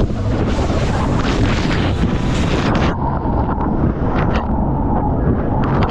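A jet boat turning hard at speed: heavy wind buffeting on the microphone and water spray crashing over the hull, with the boat's engine running underneath. About halfway through, the sound turns duller.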